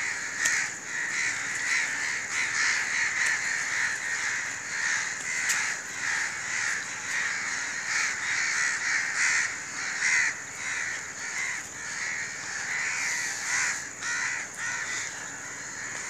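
A flock of crows cawing, many harsh calls repeating and overlapping without a break.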